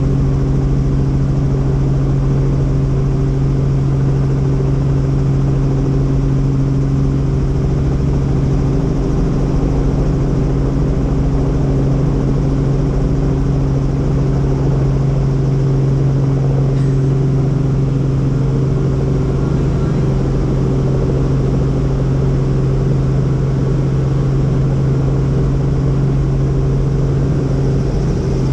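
Helicopter engine and rotors running steadily: a loud, even drone with a strong low hum.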